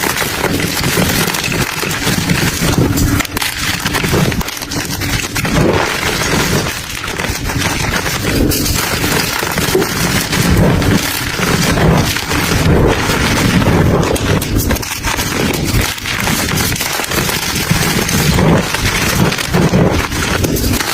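Brittle, crunchy crumble material being crushed and broken apart by hand: dense, continuous crackling and crunching with many small snaps.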